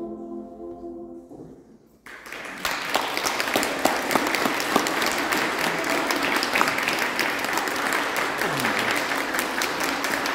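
The choir's final held chord fades away in the first second or so. After a moment of quiet, applause starts about two seconds in, builds quickly and carries on steadily.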